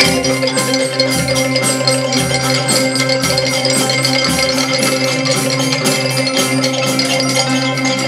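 A school Orff ensemble of xylophones, metallophones and glockenspiel playing together. The mallets strike a fast, even rhythm over sustained notes, and a low bass bar sounds about once a second through the first half.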